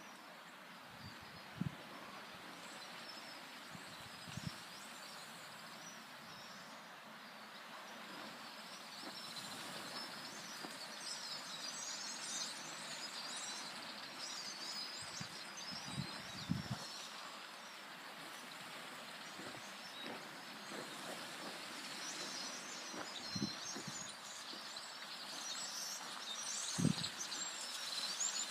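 Outdoor ambience of many small birds chirping and twittering over a steady background hiss, the chorus thickening after the first several seconds. A few brief low thumps are scattered through it.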